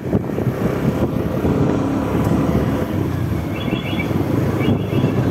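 A vehicle engine runs steadily on the move, as a low rumble mixed with wind noise on the microphone.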